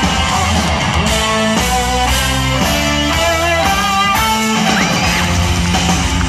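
Live band playing loudly through a festival's stage sound system, heard from within the crowd. About a second in, a run of clear stepped notes climbs and falls over a steady bass, lasting until about halfway through.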